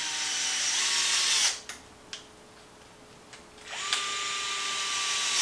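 DeWalt 8-volt cordless gyroscopic screwdriver running in two spells of about one and a half to two seconds each, tightening front bumper screws into an RC truck, with a few light clicks in the pause between.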